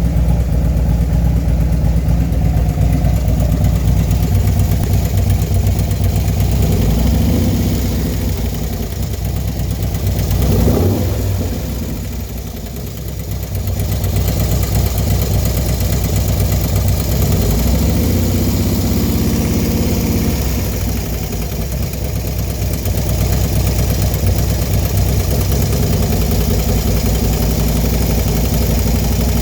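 Small engine fitted with a newly installed 110 kit, idling with a clicking noise that appeared after the kit went in. The engine speeds up briefly about ten seconds in, then drops back and slows slightly twice.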